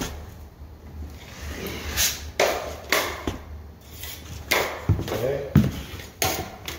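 Steel drywall taping knife scraping joint compound, a series of short scrapes a few tenths of a second each.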